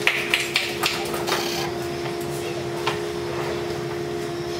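A steady background hum with a few light clicks and taps from the phone being handled, clustered in the first second and a half, with one more near three seconds.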